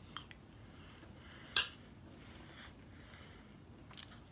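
A spoon clinking sharply once against a bowl about a second and a half in, with a few light clicks of the spoon before it and near the end.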